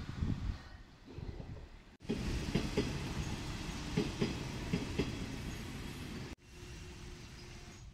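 A train running past, its wheels clanking irregularly over the rail joints, heard in short pieces with two abrupt cuts.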